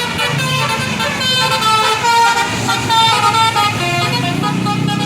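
Telolet basuri multi-tone air horn on a tour bus playing a quick run of changing notes over the bus engine running.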